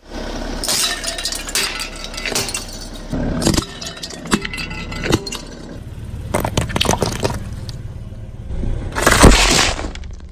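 A car tyre rolling over brittle objects and crushing them: a run of cracks, snaps and crunches over the low rumble of the car. The loudest burst of crunching comes about nine seconds in.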